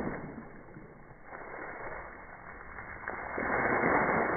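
Slowed-down sound of a water balloon burst: a wash of splashing water that dies away, then swells into a louder rushing noise about three seconds in.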